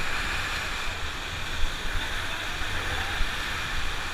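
Whitewater of a river rapid rushing steadily around an inflatable raft, with an uneven low rumble underneath.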